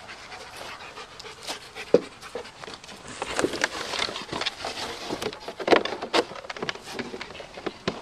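Black German Shepherd panting, with sharp crackles of thin plastic as it bites and tugs at a torn plastic toy; both grow louder about three seconds in.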